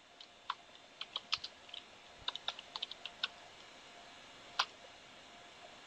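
Typing on a computer keyboard: a quick, uneven run of keystrokes for about three seconds, then a single louder key press about a second and a half later, the Enter that runs the typed command.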